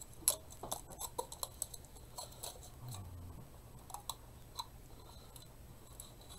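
Scattered light clicks and taps of small craft supplies being handled and set down on a cutting mat, the sharpest about a quarter second in, over a faint steady low hum.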